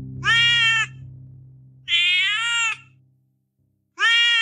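Kitten meowing: three short, high mews spaced about a second and a half to two seconds apart. Underneath runs a low, steady background music tone that fades out about three seconds in.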